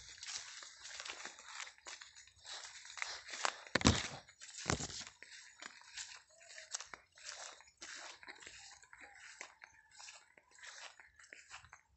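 Footsteps crunching and rustling over dry leaves, twigs and grass, an irregular run of crackles, with two heavier thuds about four and five seconds in.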